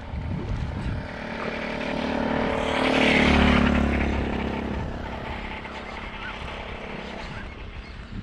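A motor vehicle passes close by: its engine grows louder to a peak about three seconds in, then fades away.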